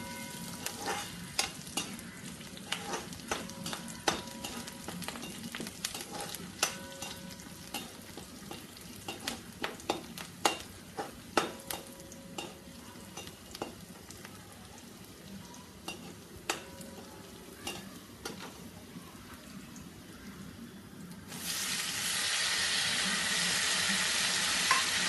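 Shallots and curry leaves frying in oil in an iron pan, with a spatula scraping and tapping the pan many times. About 21 seconds in, sliced tomatoes go into the hot oil and the sizzle suddenly becomes much louder and stays loud.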